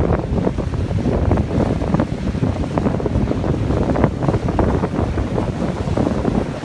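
Strong wind buffeting the microphone, a loud low rumble with constant uneven gusts and crackles.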